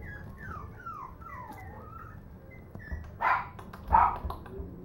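Puppies whimpering in short falling whines, then a few sharp yips from about three seconds in.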